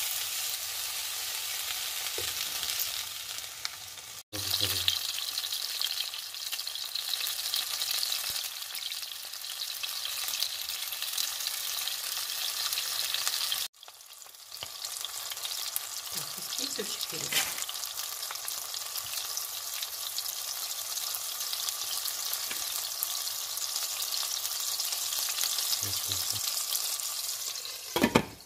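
Tomato slices sizzling in hot oil in a frying pan: a steady, crackling hiss that breaks off for an instant twice. Near the end comes a short, loud knock as a glass lid is set on the pan.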